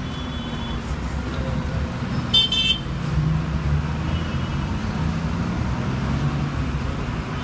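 Steady low rumble of a moving vehicle heard from inside it, with a brief high-pitched horn toot about two and a half seconds in.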